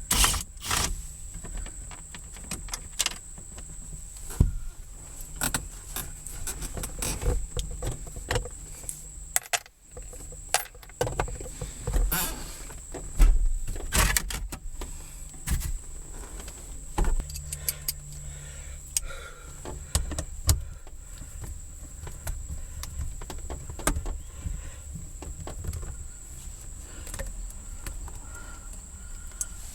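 Scattered metallic clicks, clinks and knocks of hand tools on car shifter parts as the gear shift lever is worked on and taken apart. A faint steady high whine runs underneath.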